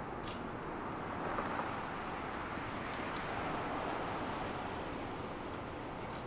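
Steady outdoor background noise that swells for a few seconds in the middle, with a few faint high ticks.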